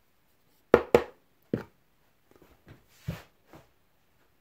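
A plastic mixing bowl and wooden spoon being handled and put down: three sharp knocks within about a second, then softer rustling and a dull thump.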